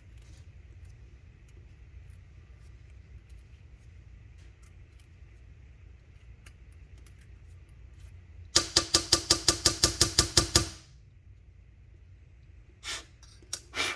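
Faint metal-on-metal handling and small ticks as a drill bit is twisted by hand in a Zippo lighter's flint tube to ream out jammed old flint. About two thirds of the way in comes a rapid run of about a dozen loud, ringing metallic clicks lasting roughly two seconds, followed by a couple of single knocks near the end.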